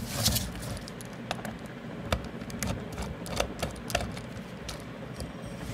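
Screwdriver backing the screws out of a DT9205A multimeter's plastic back case, with the case handled on the bench: scattered light clicks and taps, irregular in timing.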